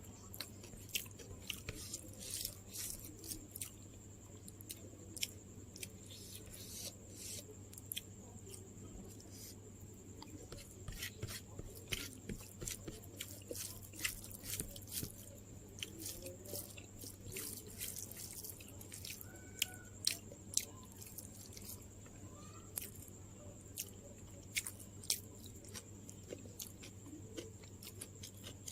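Close-up chewing and mouth sounds of a person eating, with frequent short, sharp crunching and wet clicks at an irregular pace.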